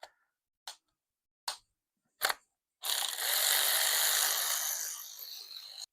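Four sharp metal clicks from hand tools working at the engine's front cover, then a steady hiss lasting about three seconds that fades near the end.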